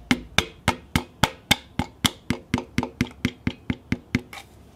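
Rubber end of a hammer tapping a piston top, quick even light taps about four a second, driving the piston past its ring compressor into a Ford 5.0 Coyote cylinder bore. The tapping stops shortly before the end, once the piston is in.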